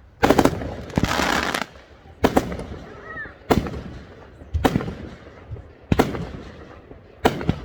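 Consumer fireworks going off in a steady series of sharp bangs, about one every second, seven or so in all. Early on a bang is followed by half a second of dense crackle.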